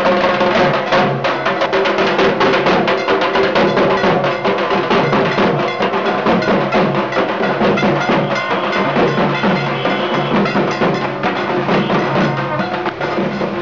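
Dhak drums beaten fast and loud with sticks in a dense rhythm, with a steady droning tone underneath.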